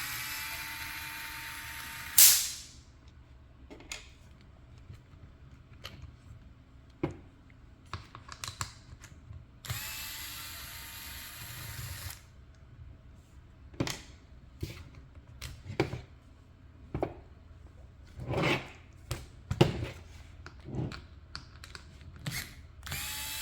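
Cordless electric screwdriver running in three short bursts of about two and a half seconds each, its pitch rising briefly as each starts, taking apart a small RC car. Between the bursts come sharp clicks and taps of small parts and tools being handled, the loudest right after the first burst.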